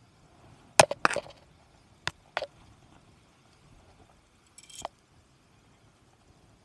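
Handling knocks and clinks while a freshly landed sea bass and a spinning rod with its lure are held over rock: two close pairs of sharp strikes in the first two and a half seconds, then a short scraping rustle about five seconds in.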